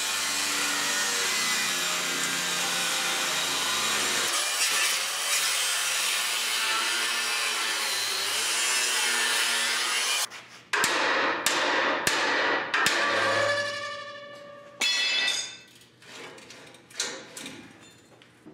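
Angle grinder cutting through the old steel bumper where it joins the frame, a steady harsh grind that stops abruptly about ten seconds in. Several sharp metallic clanks follow, each ringing on, as the steel is knocked and moved.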